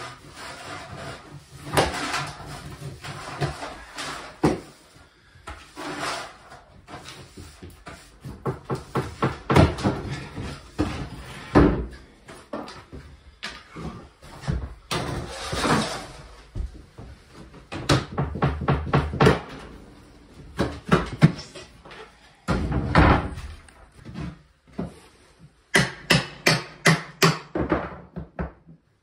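Vinyl plank flooring being ripped up and scraped off a wooden subfloor: irregular scrapes, knocks and clatters of plastic planks, with a quick run of sharp clicks near the end.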